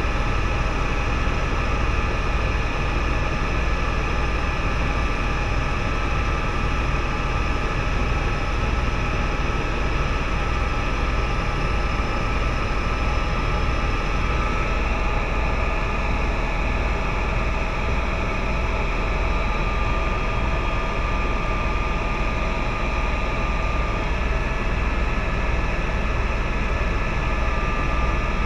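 Cabin noise of a tour helicopter in steady flight: the turbine engine and rotor make a constant low drone, with several steady high whining tones above it.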